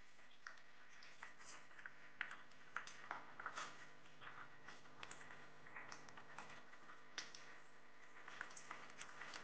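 Thick spice paste cooking in a non-stick frying pan, spluttering with faint, irregular small pops and clicks.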